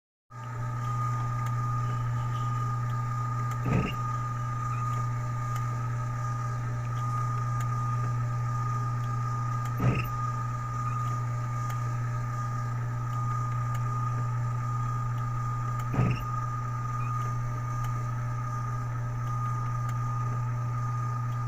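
A motor-driven machine running with a steady hum and a thin steady whine. A short rubbing scrape recurs about every six seconds, three times: a periodic abnormal rubbing noise whose cause the owner doubts could be found even by taking it apart.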